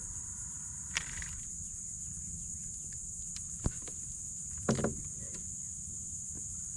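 A steady, high-pitched insect chorus with a few short clicks and knocks, and a brief louder rustle just before the end, from a small snook being handled and unhooked.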